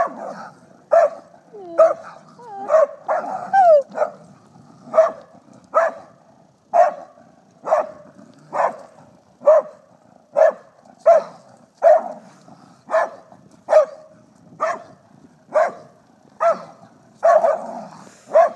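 Dog barking at a cornered raccoon, one sharp bark about every second in a steady, unbroken rhythm. A few high, sliding squealing cries come in the first few seconds.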